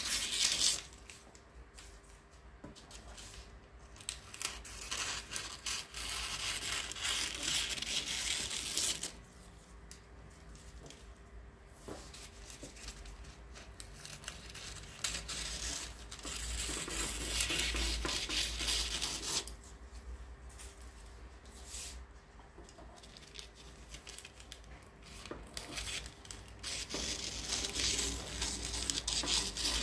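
Scissors cutting through baking parchment, trimming off the excess paper. The crisp snipping and rustling of the paper comes in several bouts a few seconds long, with quieter pauses between them.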